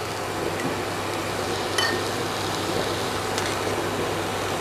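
Steady hiss of water boiling in a pot on a gas stove, with two light clinks of a spoon against a steel puttu tube as grated coconut is spooned on, about two seconds and three and a half seconds in.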